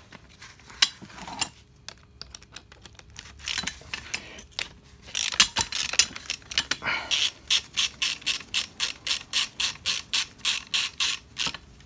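Ratchet wrench clicking in an even run of about four to five clicks a second, swung back and forth to back out a 12 mm bolt holding a mounting bracket on a power steering pump. Before the run there are scattered metal clinks and scraping as the tool is handled.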